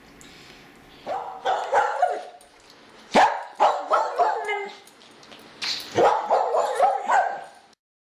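Dog barking in quick runs of several short yaps, three runs about two seconds apart, cutting off abruptly near the end.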